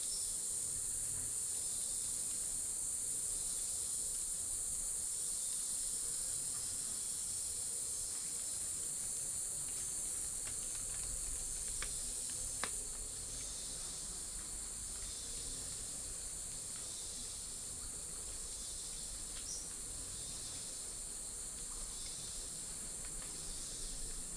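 Chorus of tropical forest insects: a steady high-pitched shrill over a lower buzz that swells and fades every couple of seconds. A single sharp click comes a little before halfway.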